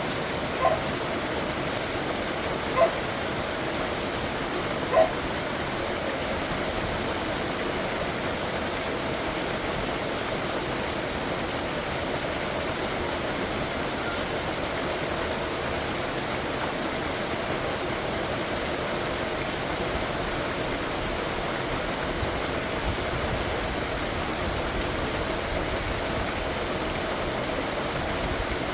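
Steady rushing of a waterfall. A dog gives three short yips in the first five seconds.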